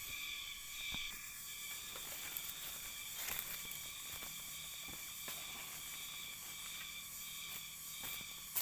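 Steady high-pitched droning of tropical insects in a garden, with a few faint clicks and rustles. A louder rustle comes near the end.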